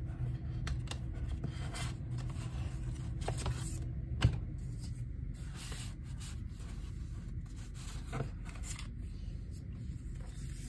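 Paper and card rustling and light taps as photo cards and album inserts are handled and shuffled on a desk, with one sharper tap about four seconds in, over a steady low hum.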